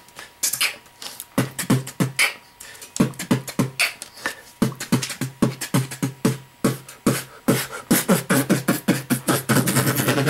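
Dubstep-style beatboxing into a handheld microphone: a quick run of mouth-made drum sounds, low thumps mixed with sharp high clicks, several a second and packing closer together near the end.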